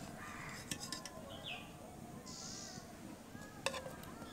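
Metal spoon clinking against the karahi as boiled amla (Indian gooseberries) are scooped out of their cooking water: a couple of sharp clinks, about a second in and again near the end. A short faint chirp about a second and a half in.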